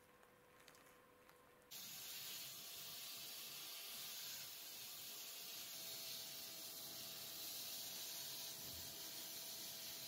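Handheld compressed-air spray gun spraying paint onto the heater's enamel parts: a steady hiss that starts abruptly about two seconds in, after near silence.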